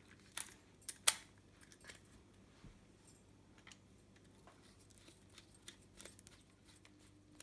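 Small metallic clicks and clinks as a mini chainsaw's chain and guide bar are handled while the chain tension is adjusted. The sharpest click comes about a second in, followed by a few faint ticks.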